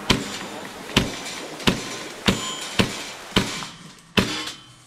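Airsoft BB gun fired semi-automatically: seven sharp shots at an uneven pace of about one every two-thirds of a second, the last one the loudest.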